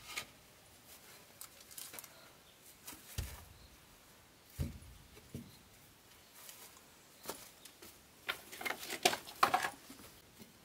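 Scattered light clicks and knocks, with two dull thumps about three and four and a half seconds in and a quick run of sharper clicks near the end.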